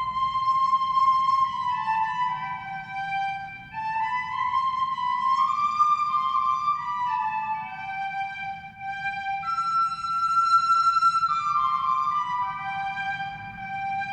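Music: a slow single-line melody of held notes in a flute-like tone, some notes gliding into the next, over a low steady hum.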